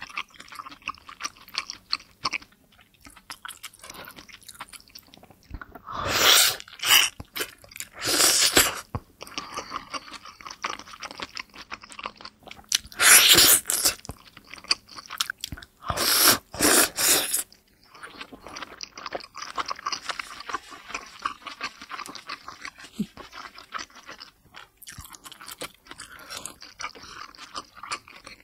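Close-up, wet chewing and mouth smacking of a juicy steamed pork momo (dumpling), as a stream of small clicks. Four times, roughly a quarter of the way in, about a third in, halfway and past halfway, there is a louder, longer slurp as the dumpling's juice is sucked out.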